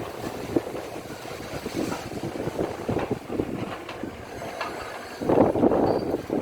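Demolition work: a heavy machine running amid knocking and rumbling, with wind on the microphone, growing louder about five seconds in.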